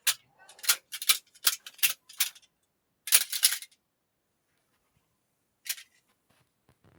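Short, sharp clicks and clinks of small hard objects handled for a foley take: about six in the first two seconds, a quick cluster about three seconds in, and one more near the end.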